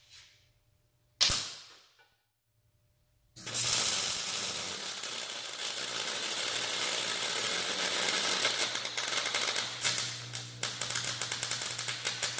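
Electric arc welding: a short click about a second in, then from about three seconds the arc runs as a steady crackling hiss. Near the end it breaks into stuttering sputters before stopping. A poor ground through a coating on the metal is blamed for the uneven arc.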